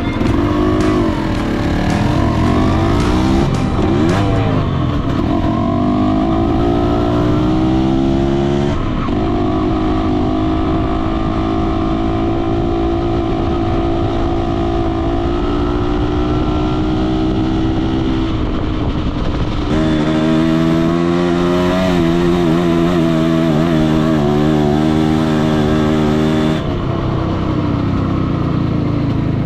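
Yamaha DT125R's two-stroke single-cylinder engine running, revving up and down in the first few seconds, then holding steady notes that step to a new pitch several times.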